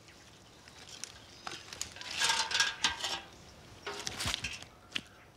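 Water being drawn by hand into a metal pail and the pail lifted: splashing and sloshing water with the clatter of the metal pail and its handle, in a few short bursts, the loudest about two seconds in.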